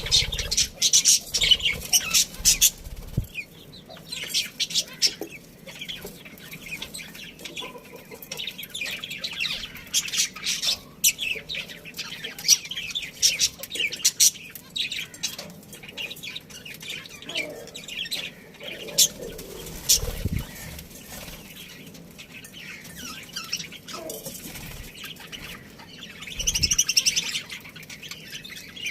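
A colony of budgerigars chirping and chattering continuously in quick, high twittering calls, with occasional low thumps of wings or birds moving in the cage.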